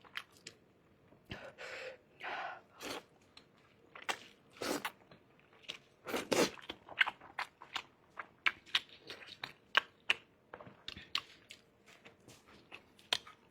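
Close-miked eating: a run of chewing and wet mouth smacks and clicks, with a few longer, noisier mouth sounds early on and a louder one about six seconds in.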